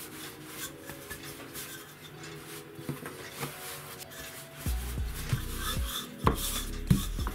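Wooden rolling pin rolling yeast dough on a floured countertop: a low rolling rumble that starts a little past halfway, with several sharp knocks as the pin meets the counter. Soft background music plays underneath.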